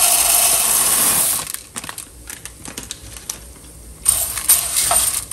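Dry small shell pasta poured from a plastic bag into a glazed clay pot, a dense rattling rush that stops about a second and a half in. From about four seconds in, a metal spoon stirs the dry pasta in the pot, with sharp irregular clicks and scrapes against the clay.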